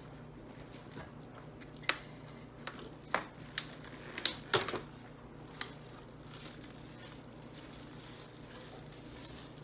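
Plastic wrap and parchment paper crinkling while a metal cake pan is turned over onto a glass platter, with several light knocks and clinks of pan against glass.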